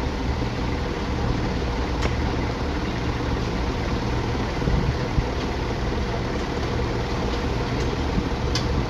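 An engine idling steadily with a low hum, with a couple of light clicks, one about two seconds in and one near the end.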